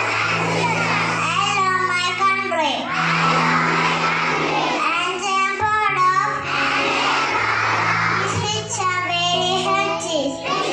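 A group of young children singing together over instrumental music, with steady low held notes under the voices.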